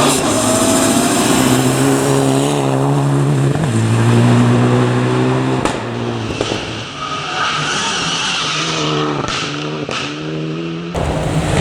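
Rally cars driving hard on a special stage: engines at high revs, their pitch stepping up and falling back with quick gear changes. About halfway the sound changes to another car with rapidly wavering revs, and it cuts abruptly to a third near the end.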